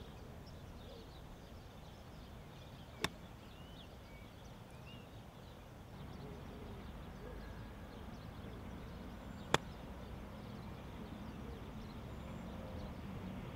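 Two crisp strikes of a golf club on the ball, one about three seconds in and one about nine and a half seconds in, the second from a 60° wedge. Birds chirp faintly over steady outdoor air noise.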